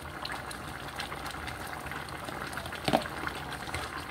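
Pot of goat-meat stock bubbling at a boil, with a single sharp knock about three seconds in.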